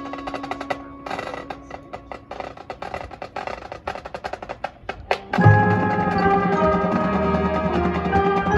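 Marching band music: the percussion section plays rapid, sharp clicks and taps over a held tone. About five seconds in, a loud hit brings in the full band with sustained brass and wind chords.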